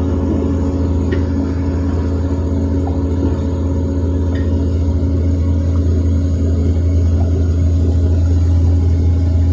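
Steady low engine drone and road noise of a moving vehicle, heard from inside its cab.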